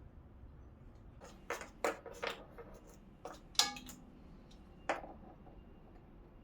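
Several light, sharp metallic clinks and taps, like small parts or hand tools being handled and set down, spread over a few seconds; one near the middle rings briefly.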